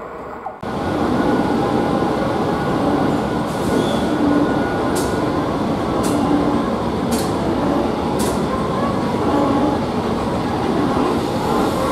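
Cercanías commuter electric train running through the station, a steady loud rumble of wheels on rails that starts abruptly about half a second in. Four sharp clicks come about a second apart midway through.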